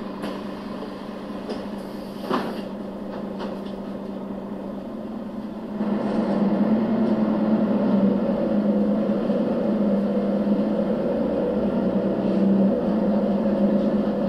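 Diesel engine of a Mercedes-Benz O 530 GL CapaCity articulated bus, heard from inside the bus, running at idle with a brief knock about two seconds in. A little before halfway the engine note rises and grows clearly louder as the bus pulls away, then holds steady under load.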